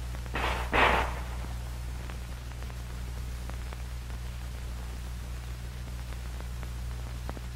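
Old optical film soundtrack hiss with a steady electrical hum and a few faint crackle clicks. About half a second in there is a brief noisy burst.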